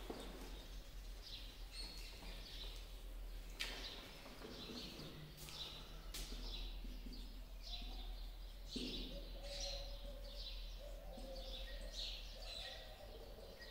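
Marker pen squeaking and scratching in short strokes on a whiteboard as words are written, over a faint low steady hum.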